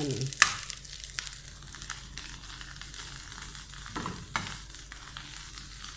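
Onion fried rice (sinangag) sizzling in a nonstick frying pan as a metal spoon stirs and scrapes it, with a couple of sharp clicks of the spoon on the pan.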